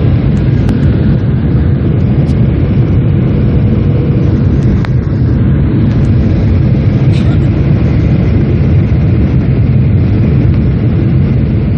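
Steady jet engine and airflow noise inside the cabin of a Boeing 737 airliner on descent toward landing, loud and heaviest in the low rumble.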